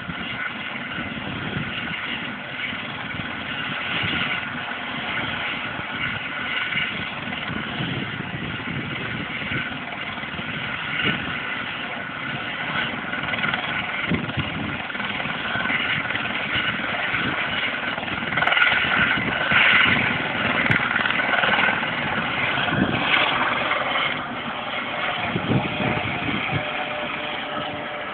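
Steady engine noise, growing a little louder about two-thirds of the way in, then easing slightly.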